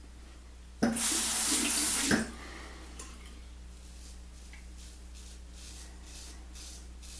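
Sink tap turned on and running in a brief gush for about a second and a half, then shut off abruptly. A series of faint short swishes follows.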